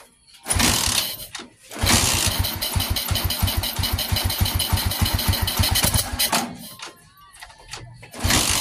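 Motorstar 125 single-cylinder four-stroke engine being cranked to start: a short burst about half a second in, then about four and a half seconds of fast, even pulsing that stops, and another brief burst near the end.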